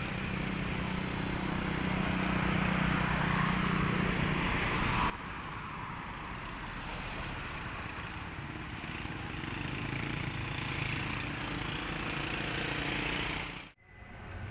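Motorcycle tricycle's engine running steadily under way, with road and wind noise. The sound drops abruptly to a quieter steady run about five seconds in and cuts out briefly near the end.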